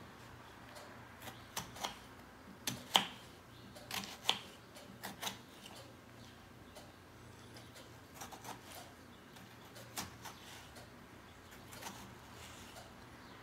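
Kitchen knife cutting through a tomato and tapping on a wooden cutting board, an irregular scatter of light clicks, the loudest about three seconds in.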